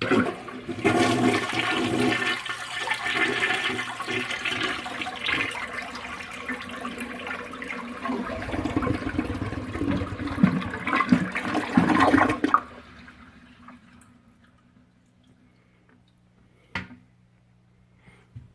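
A 1979 Cadet 2 toilet flushing: loud rushing water for about twelve seconds that then drops away suddenly. A faint steady hum follows as the tank refills through its fill valve, which sounds worn and noisy.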